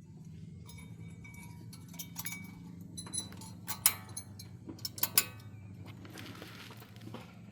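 Metal brake parts clinking as they are handled, a cluster of sharp ringing clinks in the middle, over a steady low hum.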